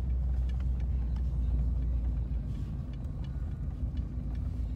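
Steady low rumble of a Chevrolet pickup truck driving, engine and road noise heard inside the cab.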